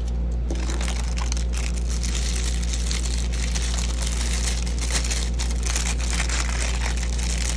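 Packaging crinkling and rustling as items are unwrapped from the box, many short crackles, over a steady low hum.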